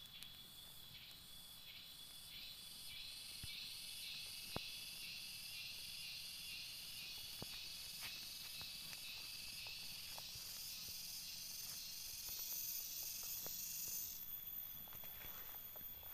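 Cicada song: a high, pulsing buzz at about two pulses a second that slowly rises in pitch and grows louder, then cuts off suddenly near the end. A steady high insect drone runs underneath, with a few faint clicks.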